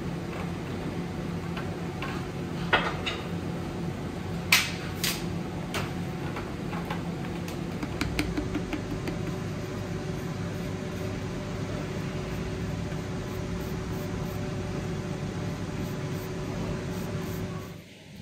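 Steady motor hum with a few sharp knocks, the loudest about three and five seconds in; the hum drops away briefly near the end.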